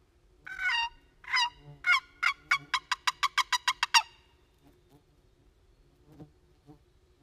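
Wooden turkey box call worked by hand, its lid scraped across the box to imitate a hen turkey. It gives three slow yelps, then speeds into a quick run of about a dozen sharp notes, six or seven a second, stopping about four seconds in.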